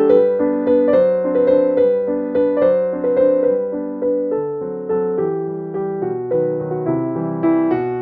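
Background piano music: a steady run of plucked-sounding keyboard notes at an even pace.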